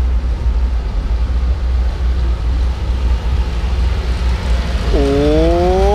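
Wind buffeting the microphone of a camera on a moving bicycle: a steady, loud low rumble. About five seconds in, a long drawn-out call starts and rises in pitch.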